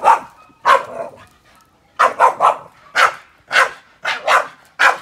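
Boston terrier barking at the flames flaring from a charcoal grill: about ten short, sharp barks, some in quick runs of two or three.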